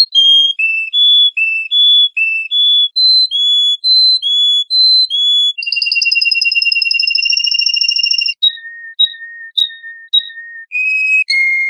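Bird song of clear, pure whistled notes. A quick run of short notes steps up and down in pitch, then one long held whistle of nearly three seconds, then short chips over lower notes, ending on a single note.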